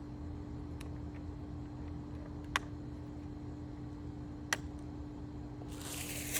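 Two sharp plastic clicks about two seconds apart from a trail camera being handled as its memory card is swapped, with a few fainter ticks, over a steady low hum; rustling rises near the end.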